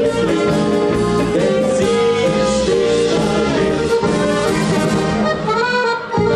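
Live band music led by two piano accordions, with trumpet and keyboards. The music drops briefly near the end, then carries on.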